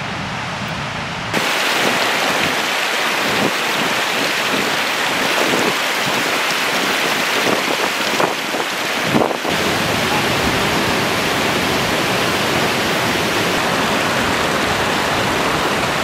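Mountain stream rushing and splashing over rocks: a loud, steady rush of water that gets louder about a second in.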